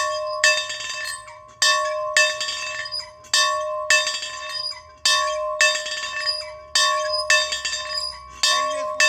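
A single metal bell rung over and over, its clapper striking about every half second in uneven pairs, each stroke ringing on into the next with the same steady pitch.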